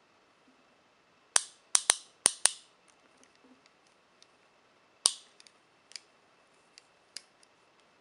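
Steel Speedcuffs rigid-bar handcuffs clacking as the cuffed wrists are twisted and moved. Five sharp metallic clacks with a brief ring come in quick succession about a second and a half in, a single loud one comes near the middle, and a few lighter clicks follow.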